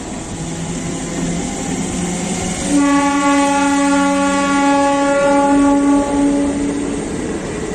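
Passenger train coaches running past at speed, with a train horn sounding one long steady blast for about four seconds, starting about three seconds in.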